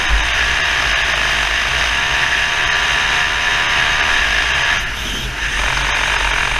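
Wind and road noise on a bicycle-mounted GoPro HERO3+ camera as the bike rolls fast downhill: a steady loud rush with a low rumble underneath. The rush drops briefly about five seconds in.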